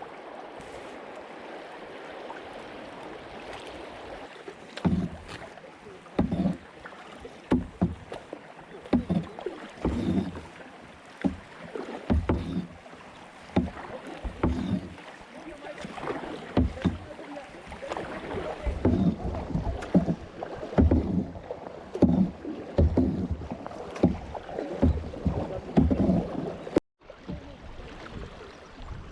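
Kayak paddle strokes in river water: repeated splashes at an uneven pace of roughly one a second over a steady wash of water, starting a few seconds in. The sound drops out for a moment near the end.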